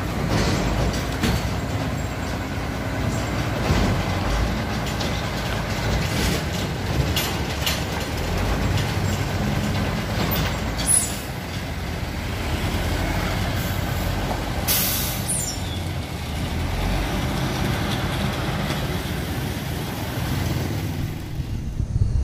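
Mercedes-Benz 1521 truck's OM366LA six-cylinder turbo-intercooled diesel idling steadily, with two short hisses of compressed air around the middle.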